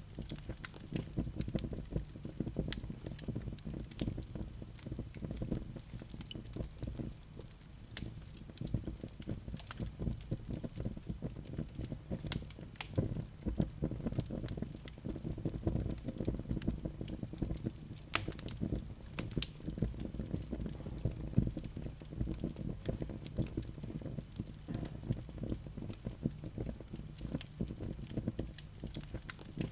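Wood fire burning in a fireplace, crackling and popping irregularly over a steady low rumble of the flames.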